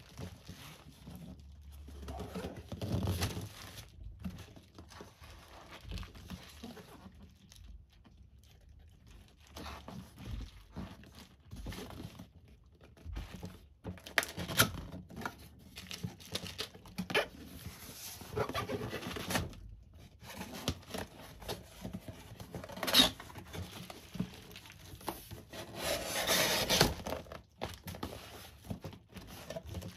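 Cardboard box being handled and opened on a sheet of bubble wrap: irregular rustling, scraping and crinkling of cardboard and plastic wrap, with a few light knocks and a longer run of louder rustling near the end.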